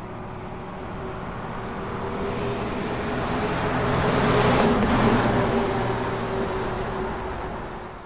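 Busy street traffic, with one motor vehicle passing close: its engine hum and tyre noise swell to a peak about halfway through, then fade away near the end.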